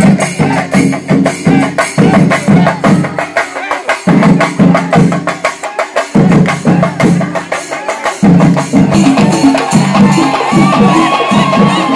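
Drums and cymbals playing a fast, driving rhythm, with short breaks in the drumming. A high, wavering tone joins over the beat near the end.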